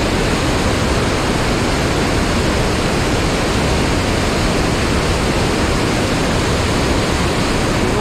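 Steady, loud rush of water from a small mountain-stream waterfall and the shallow riffle below it.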